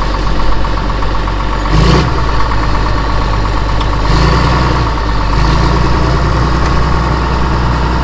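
Bulldozer engine running under load as its blade pulls a concreted-in metal fence post out of the ground by a chain. The engine note swells briefly about two seconds in, then again from about four seconds in, and holds there.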